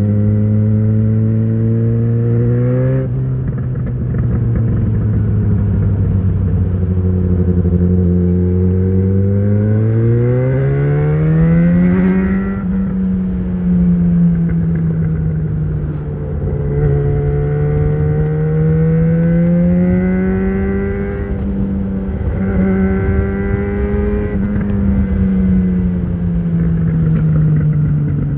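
2013 Yamaha XJ6's 600 cc inline-four running through an Ixill full exhaust with the dB killer fitted, under way. The revs climb for the first few seconds, drop at about three seconds, hold steady, climb again around ten to twelve seconds, then rise and fall gently through the rest.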